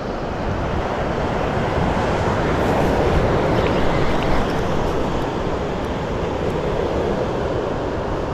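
Ocean surf washing and breaking, with wind buffeting the microphone; the wash swells for the first few seconds and then eases.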